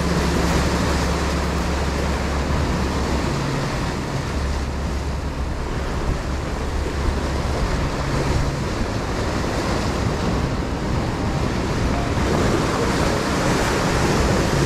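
Sea waves washing against a rocky shore, with wind buffeting the microphone. A low steady hum runs under it for about the first nine seconds.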